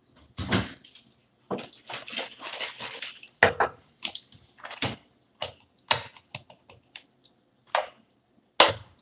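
Irregular knocks, clicks and clatter of kitchen things being handled, like dishes and utensils set down and moved about.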